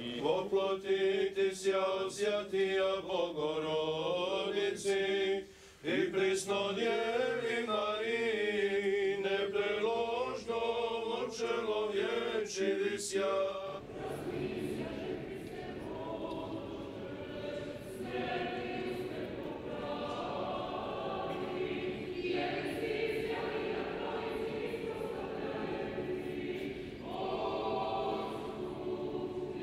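Orthodox church chant sung a cappella by a few men, with a winding melody and a short break about six seconds in. About halfway through it gives way to a fuller choir holding longer notes.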